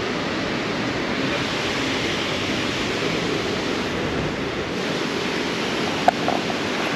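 Steady rushing noise of wind and city street ambience on a body-worn action camera's microphone, with one short sharp click about six seconds in.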